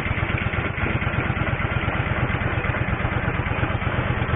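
An engine running steadily at an even speed, a continuous low pulsing hum.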